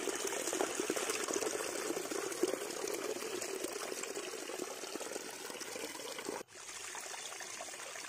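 Shallow stream water trickling and splashing over flat rock. The sound drops out for an instant about six and a half seconds in, then resumes.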